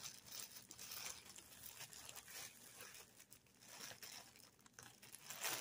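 Faint crinkling of the thin clear plastic wrap around a stack of paper napkins as it is handled.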